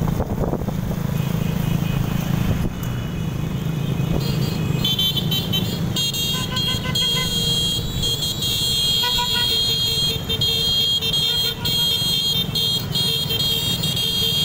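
Motorcycle and scooter engines running on the road, heard from a moving motorcycle among other bikes, with a steady low rumble. From about five seconds in a steady high-pitched tone sits over it, with short shorter tones coming and going for a few seconds after.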